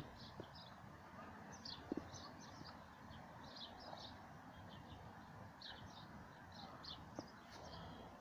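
Faint outdoor ambience with small birds chirping in the background: many short, high chirps scattered throughout.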